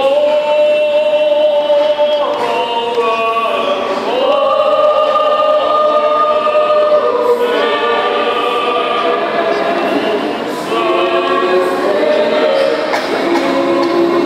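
Mixed adult choir of women and men singing in parts, holding long chords that shift to new notes every few seconds. The singing enters strongly at the start and eases briefly about three quarters of the way through.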